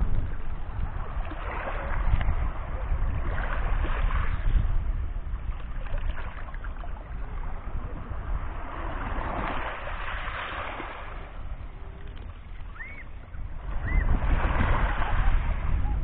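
Small sea waves lapping and washing over a pebble beach, swelling and easing every few seconds, with wind rumbling on the microphone.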